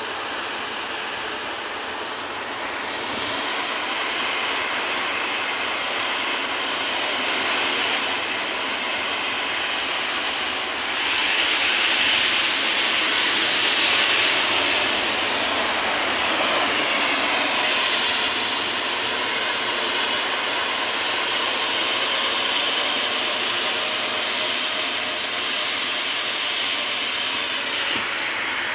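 Jet airliner engines running continuously. The noise swells as a jet flies low on approach, loudest about 12 to 15 seconds in as it passes, then eases off with a faint falling whine.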